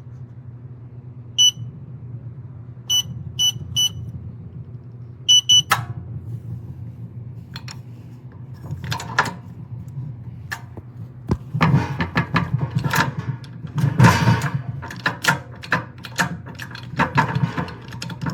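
Electronic keypad of a steel security safe beeping as its buttons are pressed: a series of short, high beeps spaced unevenly over the first six seconds. Then come a few sharp clicks and a longer stretch of irregular clattering and handling noise, over a low steady hum.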